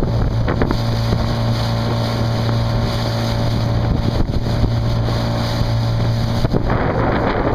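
Small open motorboat's engine running at a steady pitch while under way, with wind buffeting the microphone. About six and a half seconds in, the engine's even note drops away and a rushing noise is left.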